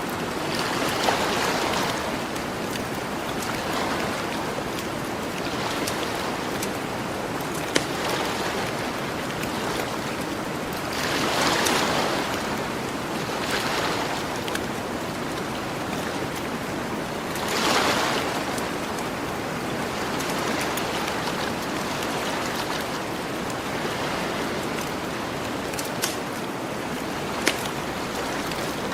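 Ocean waves washing onto a beach as a steady surf, with a few louder swells breaking. A campfire crackles through it, with a few sharp pops.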